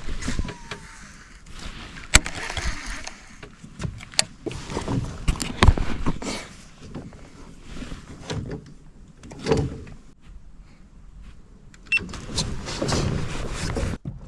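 A fishing reel being cranked in several short spells to retrieve a jig: a whirring, broken by sharp clicks and knocks from handling the rod and reel.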